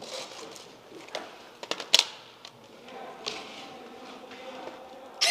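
A few sharp, scattered clicks and knocks in a small room, the loudest about two seconds in and another at the very end.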